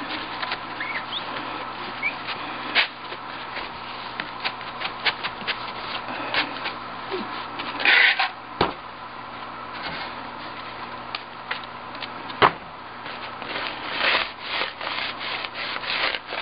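A paper towel rubbing and wiping over the glass panes of a display box, a scratchy rustle broken by many small clicks and a few sharper knocks of the glass and metal frame.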